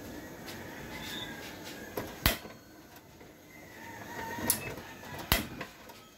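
Several sharp knocks and clacks of kitchen things being handled at the stove, the loudest just over two seconds in and the last a little past five seconds.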